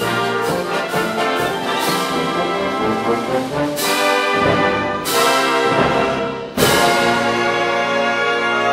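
Concert wind band playing, with brass prominent and a piano in the ensemble. Several sharp accented hits come through the music, and the band gets louder about two-thirds of the way in.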